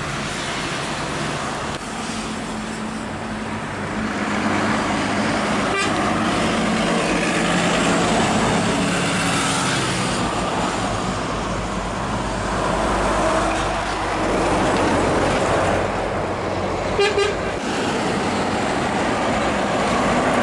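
Heavy diesel trucks driving past, their engines running and pulling with tyre noise on the road. Two short horn toots sound close together near the end.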